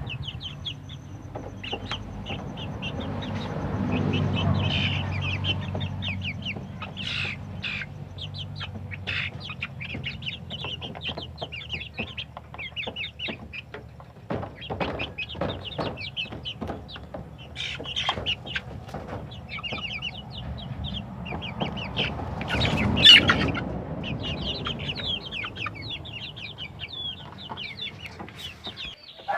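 A flock of young Asil crossbreed chickens clucking and peeping continually, with scattered sharp knocks and one louder burst of calling a little past two-thirds of the way through.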